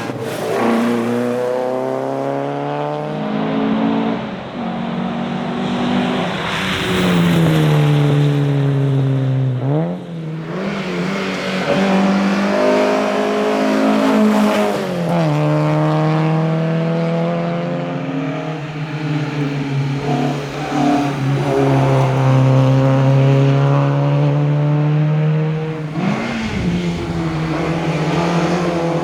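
Alfa Romeo GTV 2000's twin-cam four-cylinder engine driven hard, revs climbing and falling as it runs through the gears, with sharp drops at the shifts, the deepest about ten seconds in and again near the end.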